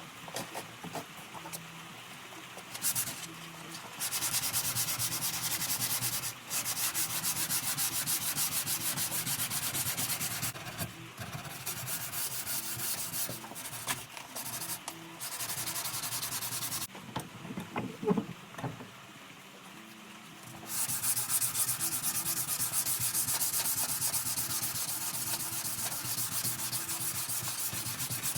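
Sandpaper rubbed by hand on wood in long runs of quick back-and-forth strokes, with short breaks between runs. There is a sharp knock in a longer pause past the middle.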